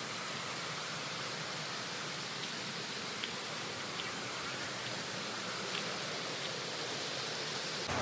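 Steady rush of falling water from a waterfall, with a few faint ticks.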